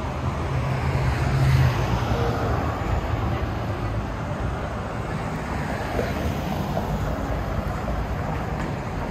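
City street traffic: a steady rumble of vehicles, with one passing loudest about a second and a half in.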